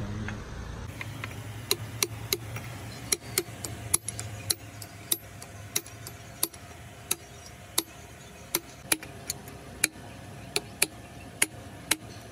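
Sharp ticks starting about a second and a half in, roughly two a second at uneven spacing, over a steady low hum.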